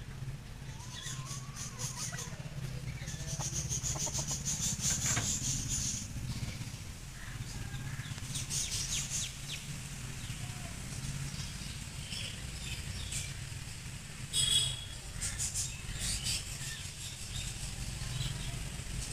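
Outdoor yard ambience: small birds chirping now and then over a steady low hum, with a few stretches of scratchy rustling.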